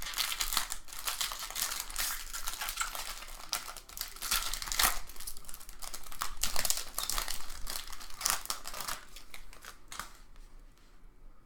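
Plastic trading-card pack wrapper crinkling and tearing as a pack of baseball cards is opened and handled; an irregular crackle that thins out near the end.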